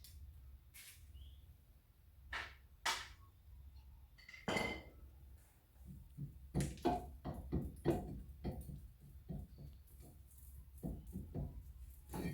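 Metal clinks and knocks of hand tools and small screws being handled at a car's rear brake drum: a few separate knocks, then a busier run of light taps in the second half, over a low steady hum.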